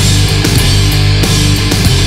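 Doom metal band playing an instrumental passage: distorted guitars and bass holding low notes, with drum and cymbal hits about every half second and no singing.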